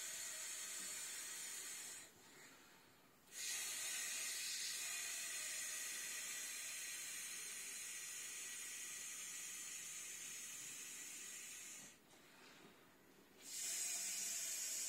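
Air hissing as a Summer Waves inflatable tiger pool toy is blown up by mouth through its valve: long exhaled breaths, one lasting about eight seconds, broken twice by pauses of about a second and a half to draw breath.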